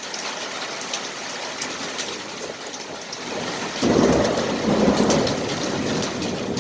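Rain and small hailstones falling, a steady patter with many sharp little impacts. About four seconds in a loud low rumble rises suddenly and fades over a second or two.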